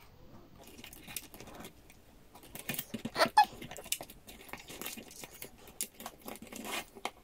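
Light plastic clicks and rustling as small LED bulbs are handled and pushed into the holes of a plastic butterfly lamp, fingers brushing over its rhinestone-covered surface. The clicks come irregularly, a few sharper ones about three seconds in.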